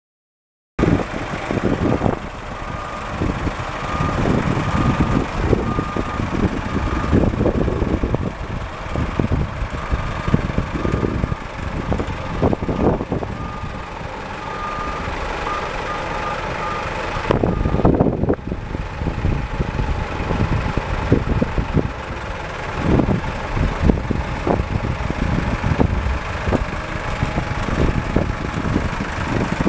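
Heavy truck's Caterpillar 3306 inline-six diesel engine running as the truck manoeuvres, starting about a second in, with its backup alarm beeping repeatedly through the first half.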